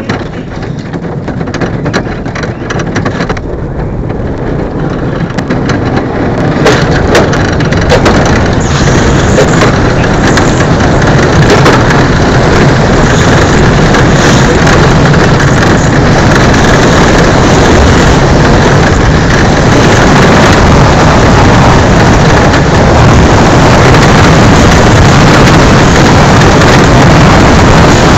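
Monobob bobsleigh running down an ice track, its steel runners grinding and rumbling on the ice with a rush of air. The noise builds over the first six to eight seconds as the sled gathers speed, then stays loud and steady.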